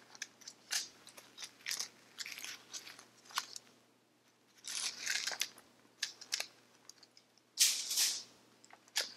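A long jewelry gift box with a rhinestone necklace inside being handled and turned over, giving scattered short rustles and clicks, the loudest about eight seconds in.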